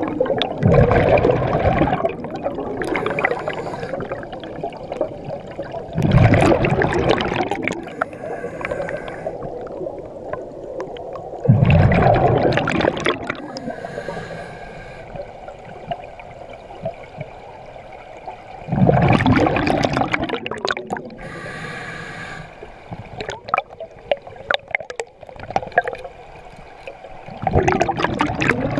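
Scuba diver breathing through a regulator underwater: five loud bursts of exhaled bubbles, about every five to seven seconds, with quieter inhalations through the regulator between them.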